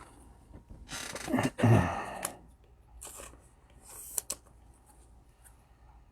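Trading cards being handled and flipped through by hand, with rustles and a sharp click; the loudest handling noise comes about a second in.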